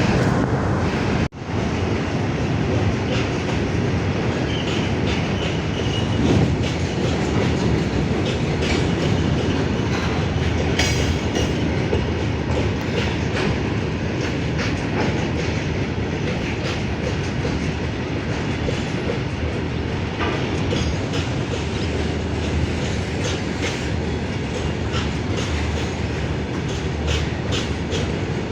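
Freight train rolling past at speed: a steady rumble of wagons, with the wheels clicking rhythmically over rail joints. The sound breaks off briefly about a second in.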